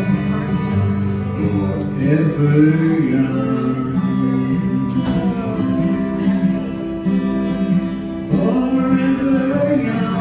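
A recorded song: strummed acoustic guitar with a man's voice singing long phrases.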